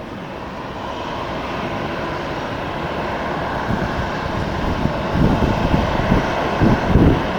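Airliner engines running, a steady rush that grows slowly louder as the aircraft nears, with wind buffeting the microphone in low gusts from about five seconds in.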